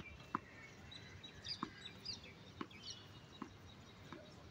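Tennis ball bounced on a hard court before a serve: about six short knocks, roughly a second apart. Birds chirp in the background.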